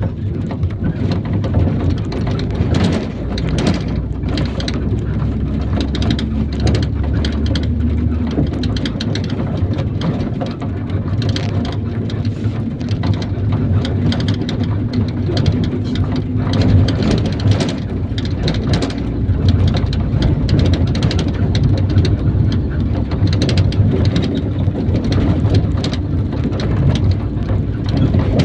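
IVECO Daily 50-140 bus on the move, heard from inside: a low engine drone under dense, steady rattling and crackling of the body and road noise. The lowest engine note drops away about nine seconds in.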